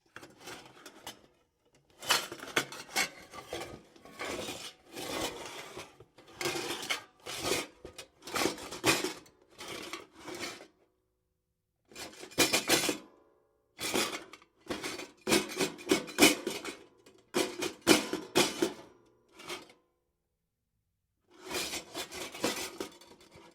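Kitchen utensils clattering against a bowl in repeated bursts of rapid knocks and scrapes, with a faint ringing from the bowl. The bursts are separated by short silences.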